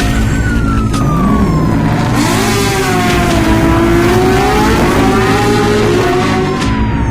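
Vehicle engine sound effects, revving with the pitch falling and rising as if speeding past, over a steady low backing.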